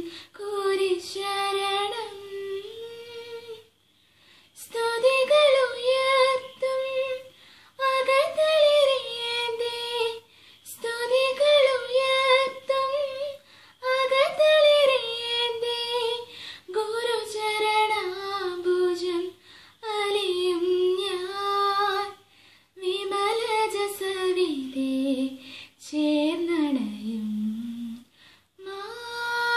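A young woman sings a semi-classical Malayalam Christian devotional song unaccompanied. Her voice glides through ornamented phrases of a few seconds each, with short breaks for breath between them.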